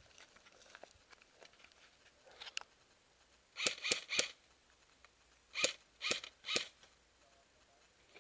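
Airsoft gun firing two quick bursts of three sharp shots, about two seconds apart, over faint crackling of brush.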